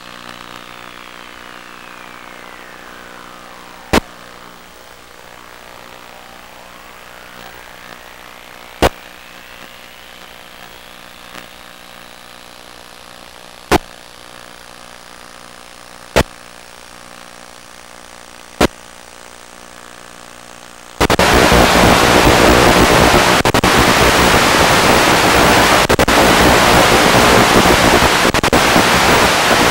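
Onboard audio of an FPV aircraft's video link: a faint steady hum of many level tones, with slow gliding tones and six sharp clicks a few seconds apart. About 21 seconds in it gives way suddenly to loud, even radio static as the video signal is lost.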